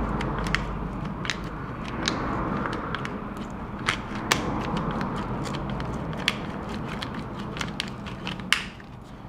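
A glued battery cell being pried loose inside a 15-inch MacBook Pro: steady scraping and crackling with irregular sharp clicks.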